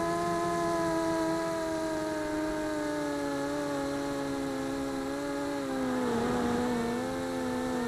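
Mini quadcopter's four Tiger MT1306-10 3100kv brushless motors and GemFam 5x3 two-blade propellers whining in flight, heard from a camera mounted on the frame. The pitch sinks slowly, then wavers up and down about six seconds in.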